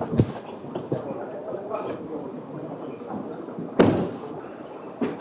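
A car door being opened, with a few sharp knocks and thuds; the loudest comes about four seconds in.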